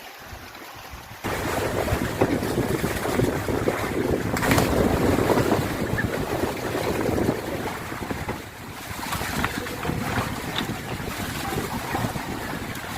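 Wind buffeting the microphone over the wash of sea water, coming in abruptly about a second in and staying loud and steady.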